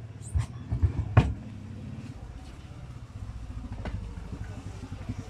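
A small engine running steadily with an even low pulse, with a few sharp clicks in the first second and a half, the last one the loudest.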